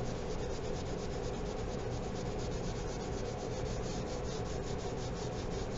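Black crayon rubbing on paper in quick, even back-and-forth strokes: light-pressure shading that lays down a pale grey tone.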